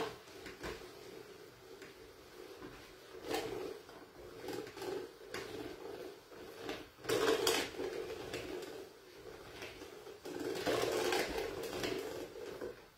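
Hand-cranked food mill turning, its blade scraping and grinding over the perforated disc in uneven bouts, loudest about seven seconds in. The cooked leafy greens are clogging and resisting being pushed through.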